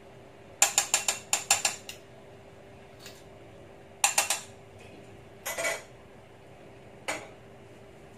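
A quick run of about ten sharp mechanical clicks, like a ratchet. A shorter burst of clicks follows about four seconds in, then a brief rattle and a single click near the end.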